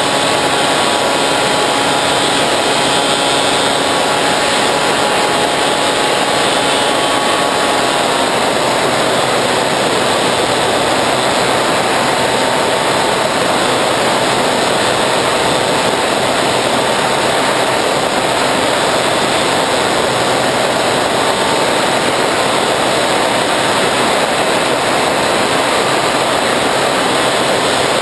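Bixler 3 RC plane's electric motor and pusher propeller running steadily in flight, heard from the plane's onboard camera under a loud rush of airflow. The motor's whine dips slightly in pitch about eight seconds in.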